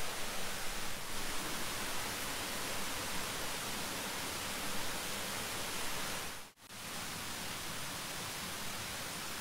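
Steady rush of a rocky mountain stream and small waterfall, an even hiss of running water. The sound drops out for a split second about two-thirds of the way through.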